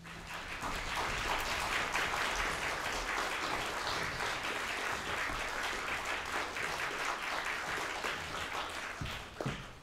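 Audience applauding with dense, steady clapping that thins out to a few scattered claps near the end.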